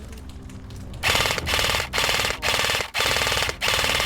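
Airsoft light machine gun firing full-auto, about five short rapid bursts in a row starting about a second in, each roughly half a second long with a fast even rattle.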